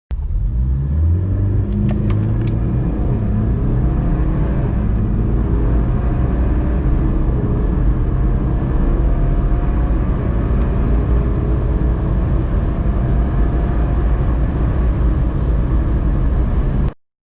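BMW car accelerating hard from a standstill to 100 km/h, the engine rising in pitch and dropping back at gear changes over a heavy low rumble. It cuts off suddenly near the end.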